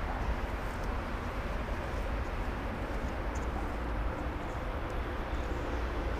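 Steady low engine rumble with a faint hum running through it, holding even with no revving or changes.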